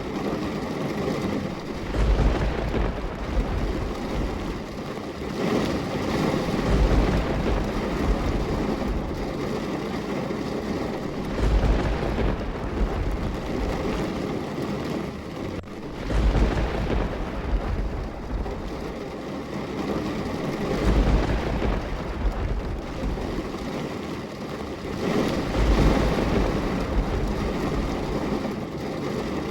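Steady rain, with a low rumble swelling about every five seconds.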